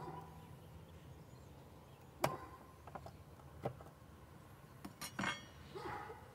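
A few sharp knocks and clinks of a metal hive tool against the wooden frames and box of a Layens beehive, each with a short ring; the loudest comes about two seconds in, with a small cluster near the end.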